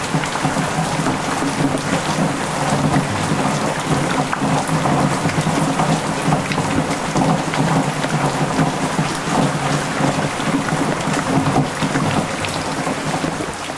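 Heavy typhoon rain pouring onto a flooded yard, with water splashing and running across the ground in a steady, dense rush.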